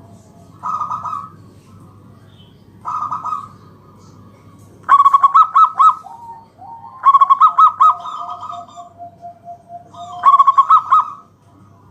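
Zebra dove (perkutut) cooing in repeated phrases a couple of seconds apart. Two softer phrases come first, then three loud stuttering phrases with quick pulsed notes, one of them trailing into a long low note.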